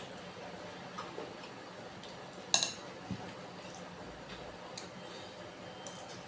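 Close-miked eating of bakso meatball soup: a few soft clicks and mouth noises, with one sharp clink of a utensil against the bowl about two and a half seconds in.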